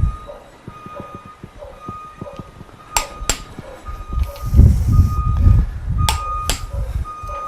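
Click-type torque wrench tightening the main bearing cap nuts of an MGB engine to about 60 ft-lb, giving two pairs of sharp clicks about three and six seconds in, with clunky handling of the wrench and engine block between them.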